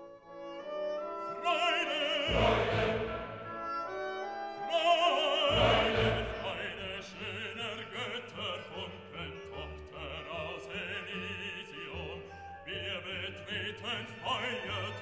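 Background music: a classical piece with an operatic voice singing with strong vibrato over orchestral accompaniment.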